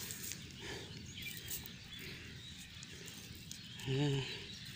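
Quiet outdoor background noise with faint scattered ticks, broken by one short voiced sound from a person about four seconds in.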